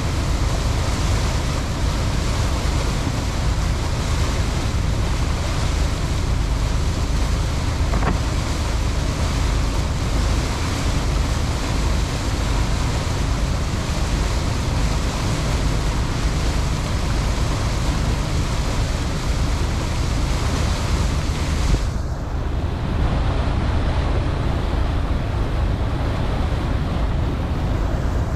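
Boat under way: a steady engine rumble mixed with water rushing past and wind buffeting the microphone. About 22 seconds in, the high hiss drops away sharply, leaving the lower rumble.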